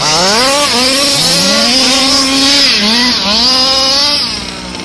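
Two-stroke petrol engine of a 1/5-scale RC buggy revving as it accelerates, its pitch climbing, falling back and climbing again several times.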